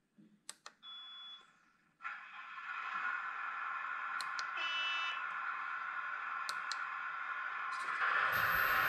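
A few plastic clicks from the radio transmitter's switches and a short high beep, then about two seconds in the RC hydraulic excavator's running sound starts abruptly and continues as a steady whirring hum, with a brief beep a few seconds later. Near the end it grows louder and a low rumble joins as the model begins to move.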